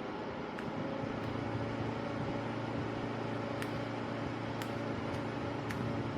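Small portable evaporative air cooler's fan motor running with a steady hum, with a few light clicks over it.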